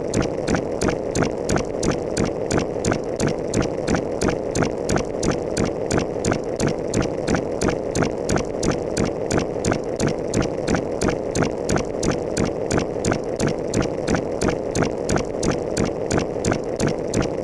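A repetitive mechanical clicking, about three to four evenly spaced clicks a second, over a steady rumbling hum, like a machine running.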